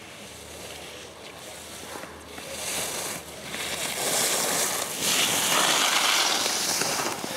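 Skis carving on groomed snow: a scraping hiss that swells in surges with the turns and grows much louder as the skier comes up close.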